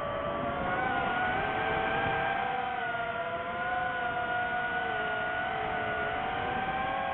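DJI FPV drone's motors and propellers whining in flight, several tones holding a fairly steady pitch with slight rises and dips as the throttle shifts.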